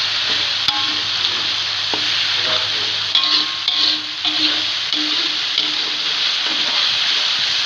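Food frying in hot oil in a pan with a steady sizzle while it is stirred, the spatula clicking against the pan a few times.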